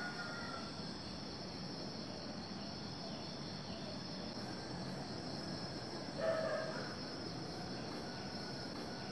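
Insects chirring steadily in a tropical garden, a continuous high-pitched drone, with one short animal call about six seconds in.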